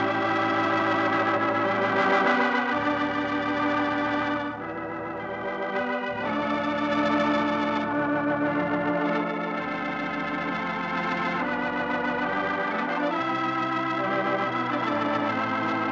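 Organ music: sustained chords that shift to new harmonies every second or two, playing out as a radio program's closing theme.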